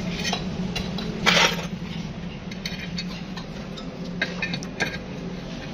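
Metal water-pump motor parts clinking and knocking as they are handled, with one louder clatter about a second in, over a steady low hum.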